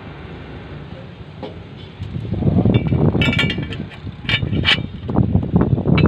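The home-built backhoe's engine running, a steady low rumble that turns much louder and rougher about two seconds in, with a few sharp higher-pitched sounds over it in the second half.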